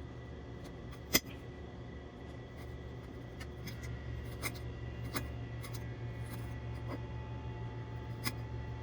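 Bread knife chopping garlic cloves: irregular sharp knife clicks and taps, the loudest about a second in, over a steady low hum.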